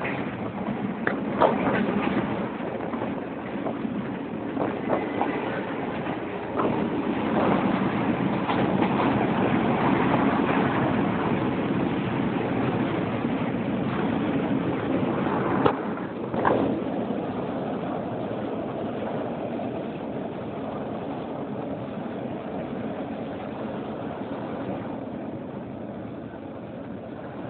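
A passenger train running along the track, heard from inside the carriage: a steady rumble of wheels on rails, with a few sharp knocks about two seconds in and again around the middle. The rumble eases off gradually over the last ten seconds.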